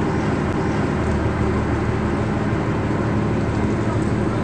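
Outrigger fishing boat's engine running steadily while under way, a constant low drone under an even rush of noise.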